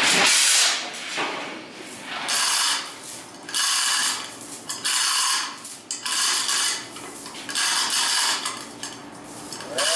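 Red lever chain hoist ratcheting in short bursts about once a second as its lever is pumped, dragging a chiller on roller skates across steel plates.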